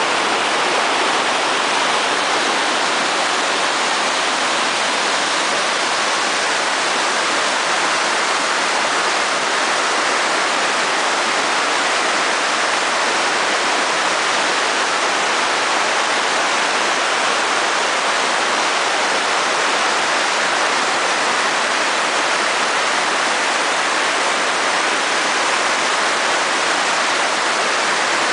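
Rhine Falls: a large river waterfall pouring over rocks into churning white water, a loud, steady rush that does not let up.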